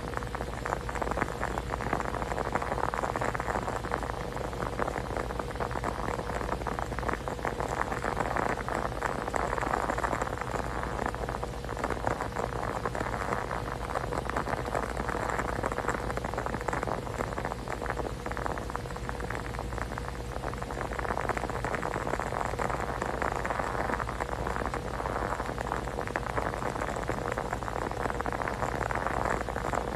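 Steady, dense patter like rain, with slow swells in loudness, over a faint constant hum.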